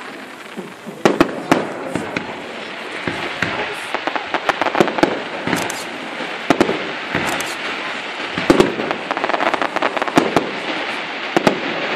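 Fireworks display heard through a mobile phone's microphone: aerial shells bursting with irregular sharp bangs, starting about a second in, and crackling between them that thickens near the end.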